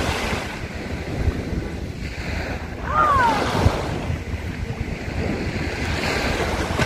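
Small sea waves breaking and washing up the shore, with wind rushing on the microphone. About three seconds in, a short call with falling pitch.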